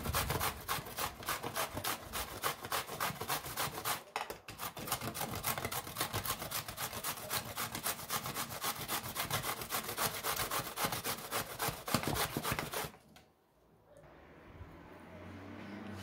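Zucchini being shredded on a stainless steel box grater: quick, rhythmic scraping strokes of the vegetable over the metal teeth, with a short break about four seconds in. The strokes stop about three seconds before the end.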